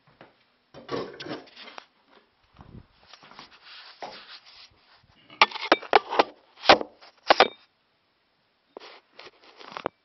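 Handling noise of a phone camera being moved about: rubbing and scraping against cloth, then a cluster of sharp knocks, the loudest of them about six and a half to seven and a half seconds in, as it is set down on a table, with a little more rustling near the end.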